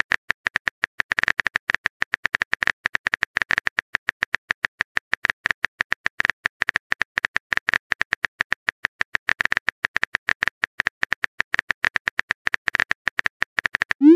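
Phone keyboard typing sound effect: a fast, uneven stream of key-tap clicks while a chat message is being typed. It ends in a short rising blip as the message is sent.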